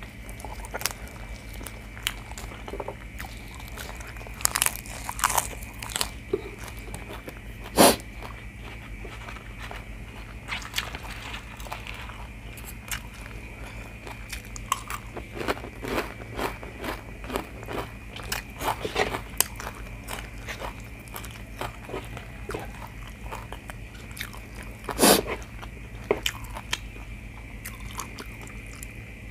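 Close-miked eating: a person chewing and crunching raw leafy vegetables and spoonfuls of spicy stir-fried chicken offal with rice, in irregular crunches and mouth clicks, with louder crunches about 8 and 25 seconds in.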